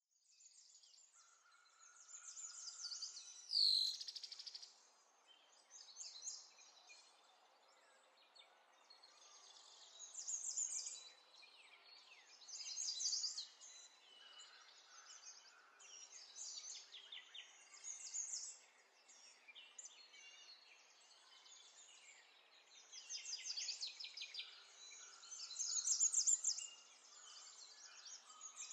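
Songbirds chirping and twittering in short bursts of rapid chirps every couple of seconds, with one loud falling whistle-like sweep about four seconds in.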